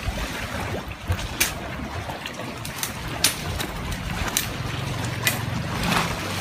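Sea water washing and lapping among coral rocks, with wind rumbling on the microphone and a few scattered sharp clicks.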